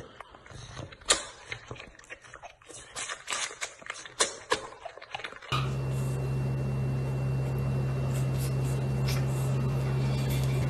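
White tiger cub sucking on a milk bottle: a string of irregular wet clicks and smacks. About halfway through this gives way to a steady low hum with a faint high whine.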